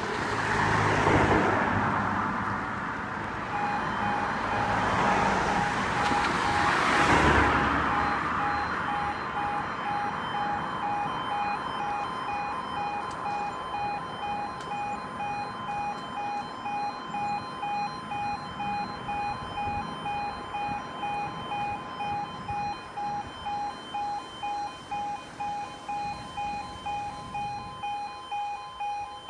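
Level crossing warning alarm starting about three and a half seconds in: an electronic tone pulsing at a steady even rate, warning road users that the barriers are about to lower for an approaching train. Road vehicles pass twice in the first several seconds.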